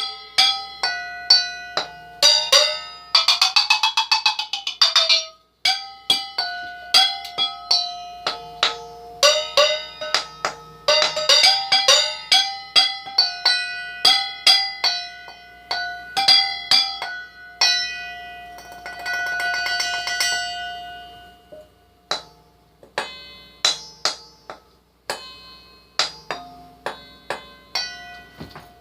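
Mixing bowls struck one after another as a makeshift percussion instrument, each strike ringing with its own bell-like pitch. About three seconds in comes a fast roll of strikes whose pitch bends up and back down, and around twenty seconds in another fast roll.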